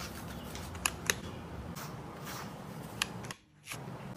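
Slicker brush strokes through a cat's coat: soft repeated scratchy brushing, with a few sharp clicks about a second in and again near three seconds.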